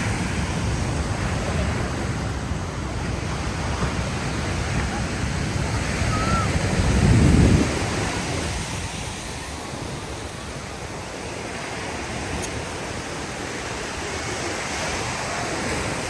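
Ocean surf washing on a beach, with wind buffeting the microphone; a louder low rush swells up a little before halfway through and dies away.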